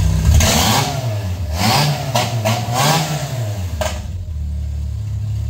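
Car engine mounted in a homemade helicopter frame, revved up and down in several short blips, then settling to a steady idle about four seconds in.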